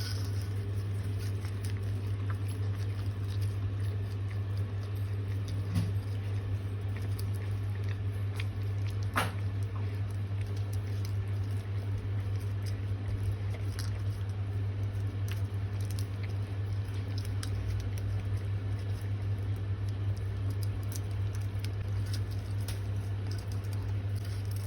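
A retriever licking and eating ice cream: scattered wet licks and smacks over a steady low hum.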